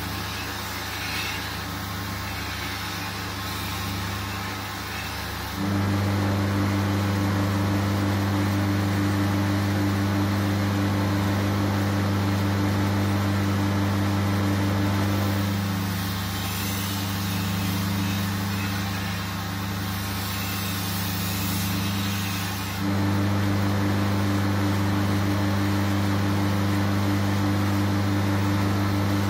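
Belt grinder running with a steady motor hum, with a shashka blade being ground against the belt for the first few seconds and again from about 16 to 23 seconds in, adding a rough grinding hiss. In between, the hum gets louder and plainer, with no grinding.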